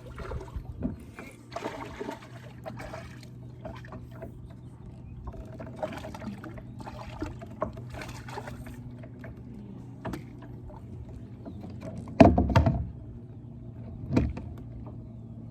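Handling noises in a kayak while a bass is pulled out of thick weeds and landed: scattered rustles, small clicks and water sounds over a steady low hum, with two heavy thumps about twelve and fourteen seconds in.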